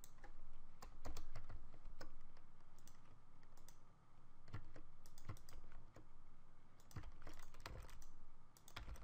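Computer keyboard typing and mouse clicks: scattered keystrokes at irregular intervals.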